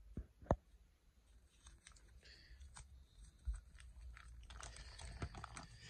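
Plastic sleeve pages of a trading-card binder being handled and turned. There are a few sharp clicks near the start, a soft thump, then a crinkling rustle of the plastic near the end.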